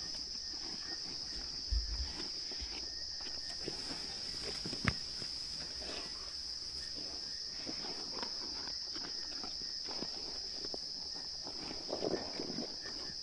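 Spotted hyenas feeding on a freshly killed zebra: scattered rustling and short sounds, a thump about two seconds in and a louder burst near the end, over a steady high chirring of night insects.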